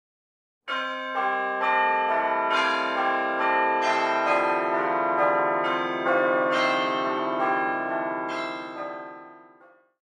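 Church bells ringing a peal, a new bell struck about twice a second over the lingering hum of the ones before. It starts suddenly just under a second in and dies away near the end.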